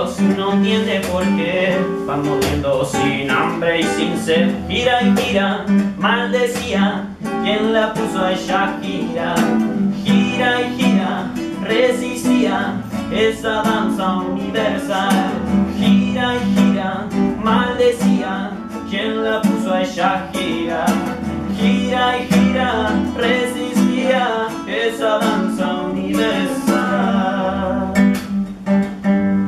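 A live acoustic guitar is strummed and plucked, accompanying a man singing a song.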